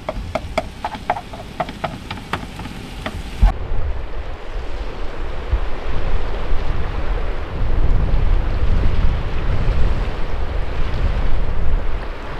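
Strong wind blowing over the microphone, a rushing, gusting noise heavy in the low end that grows stronger about halfway through. Before it, for the first three seconds or so, a run of scattered sharp clicks and ticks, cut off abruptly when the wind begins.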